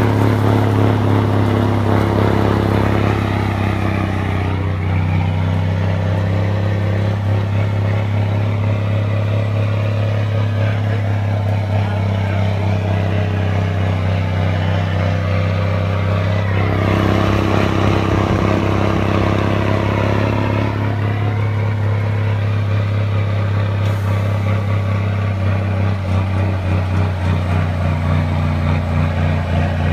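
M920 6x6 semi-tractor's diesel engine running steadily under load as it pulls across a field, a constant low drone. A broader rushing noise swells over it for a few seconds just past the middle.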